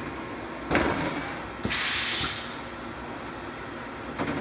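Machine-shop background: a steady mechanical hum with two bursts of hiss. The first is short, about three quarters of a second in, and a louder half-second one comes near two seconds.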